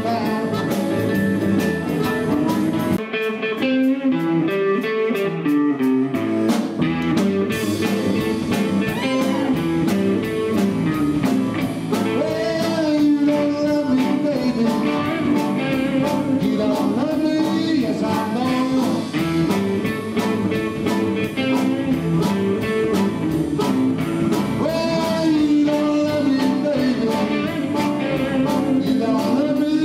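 A live rhythm-and-blues band playing a blues-style number: electric guitars and bass over a steady beat, with a wavering lead line on top. The bass drops out for a few seconds about three seconds in, then the full band comes back.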